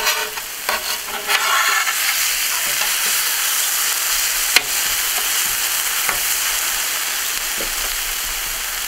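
Food sizzling steadily on a hot propane flat-top griddle, with a metal spatula scraping and tapping across the steel surface, including a sharp tap about four and a half seconds in.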